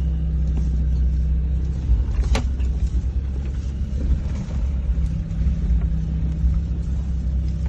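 Land Rover Discovery engine running steadily under way off-road, a continuous low drone, with a single sharp knock a little over two seconds in.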